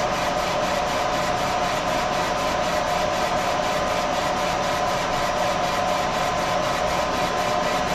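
Trotec Speedy 300 laser engraver running a raster photo engraving job: a steady machine whir, its motors and fans holding a constant tone, with a faint regular pulse a few times a second as the head sweeps back and forth.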